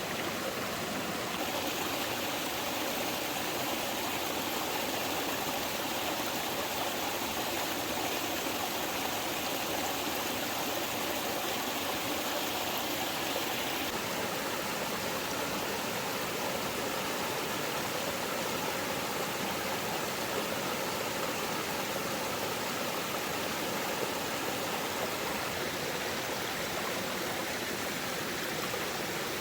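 Steady, even rushing of water that keeps up without a break, with no separate drips or splashes standing out.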